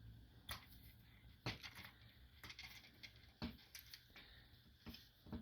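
Faint, scattered clicks and taps, roughly one a second, as screws are fitted into a skid plate by hand.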